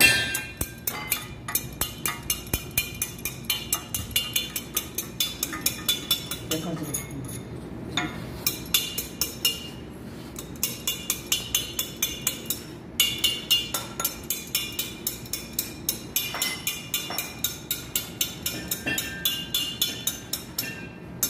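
Light metal-on-metal tapping, about three to four sharp strikes a second in runs with a short pause partway, as tools work on the metal casing of an electric pump motor being dismantled.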